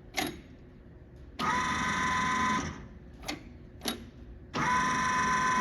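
Lathe rapid-traverse motor running in two short spurts, a steady whine each time, driving the carriage or cross slide at rapid travel. A few sharp clicks come before and between the runs.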